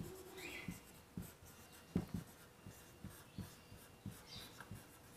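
Marker pen writing on a whiteboard: a faint run of short strokes and taps, with a couple of brief squeaks from the tip.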